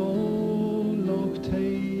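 Background music: a slow folk-style song with guitar, its melody moving in long held notes.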